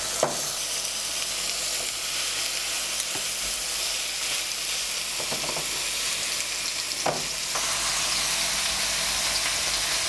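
Filet mignon steaks searing in hot olive oil, a steady high sizzle, with a few light clicks of metal tongs against the pan.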